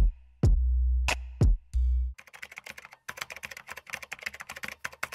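Electronic intro music: a few deep kick-drum hits over a held bass. About two seconds in, this gives way to a fast clatter of computer-keyboard typing, a typing sound effect that stops abruptly just before the end.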